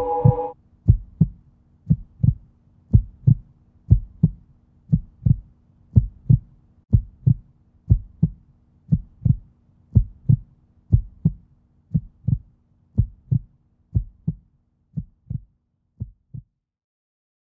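Slow heartbeat-like pulse: a double low thump about once a second over a faint steady hum, fading out near the end. A sustained chord cuts off just after the start.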